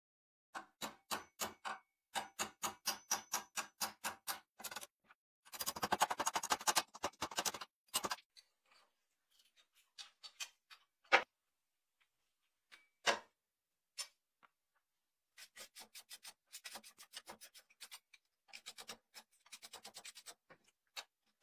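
Hammer tapping a steel pin punch to drive out rusted handle pins, about three taps a second, then a dense clatter and a couple of sharp metal knocks as the handle scale is pried off. Near the end, a brush scrubs rust off the knife's tang in quick strokes.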